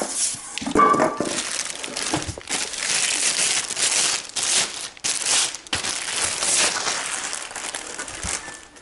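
Cardboard and plastic packing material rustling and crinkling almost without a break as parts are pulled out of a shipping box, with irregular louder bursts, the loudest about a second in.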